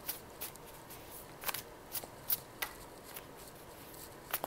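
Faint, scattered light clicks and ticks, about nine in four and a half seconds at uneven spacing.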